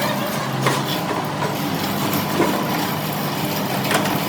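Steady mechanical running noise with a low hum, broken by two sharp knocks, one just under a second in and one near the end.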